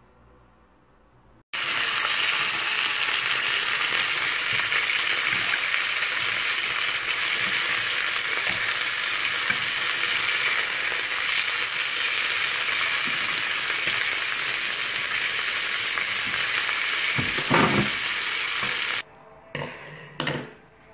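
Beef steak searing with sliced mushrooms in a hot nonstick frying pan: a loud, steady sizzle that starts abruptly and swells briefly near the end as the steak is moved with tongs. After it cuts off come a few short knocks of metal tongs in a pot of noodles.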